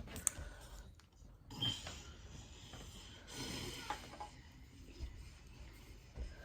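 Faint rubbing and handling noises with a few soft clicks, typical of hands working on hair.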